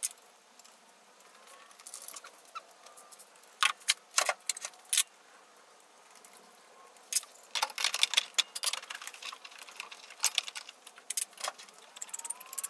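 Scattered clicks, knocks and light rattles of hard plastic as a 3D-printed ASA intake flange is pushed and fitted onto a mass airflow sensor housing, coming in short clusters.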